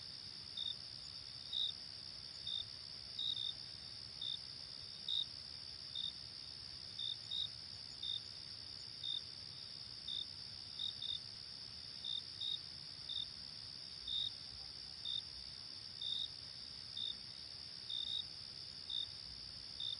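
Crickets chirping: a steady high trill underneath louder short chirps that come about once a second, sometimes two close together.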